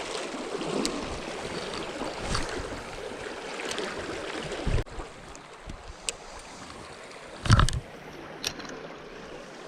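River water flowing steadily, louder in the first half and quieter after an abrupt change about halfway through, with a few light clicks and one louder knock a couple of seconds before the end.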